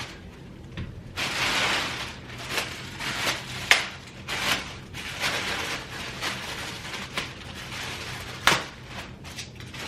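Handling noise from putting together an UPPAbaby G-Luxe stroller: rustling of packaging and parts, with a few sharp clicks as the front wheels are snapped onto the frame, the loudest about a third of the way in and again near the end.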